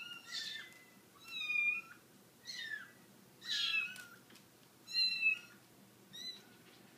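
Kittens mewing: six short, high-pitched meows, about one a second.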